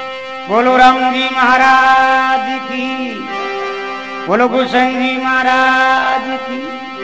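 Instrumental interlude of a devotional bhajan: a melodic instrument plays two long, held phrases, each starting with a rising slide, one about half a second in and the next about four seconds in.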